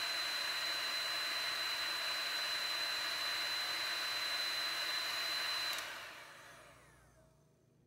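Heat gun on its low setting blowing steadily, with a high steady whine over the airflow. About six seconds in it is switched off and its fan winds down.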